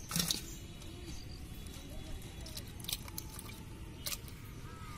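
Wet squishing and small splashes of a hand working among live small fish in a metal pot, with the loudest splash right at the start and a few faint clicks later.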